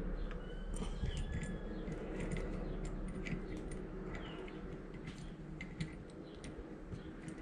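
Scattered light metallic clicks and small rattles of hose bib valve parts and pliers being handled and fitted, with a few faint short high chirps in the background.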